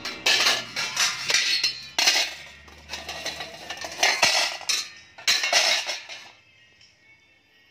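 Stainless steel pots and perforated steamer plates clanking and scraping against each other as they are handled and set into a pot, a run of sharp metallic clanks that stops about six seconds in.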